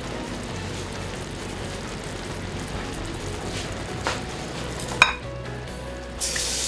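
Lemon-butter piccata sauce simmering in a frying pan, a steady low sizzle. There is a single sharp clink about five seconds in, and a louder hiss starts near the end.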